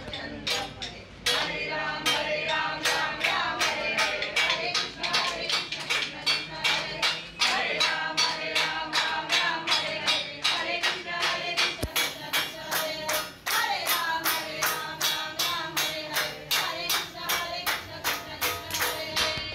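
Singing over music with a fast, steady percussion beat of about four strokes a second.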